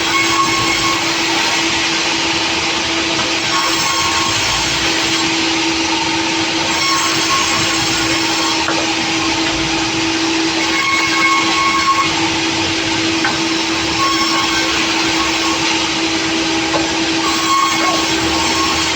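Sawmill saw running and cutting wood: a steady, loud machine noise with a constant hum, and a short higher whine that comes and goes every few seconds.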